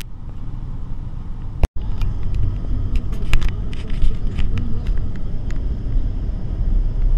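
Low, steady road rumble inside a moving car, with scattered sharp clicks and knocks. The sound cuts out for an instant about a second and a half in.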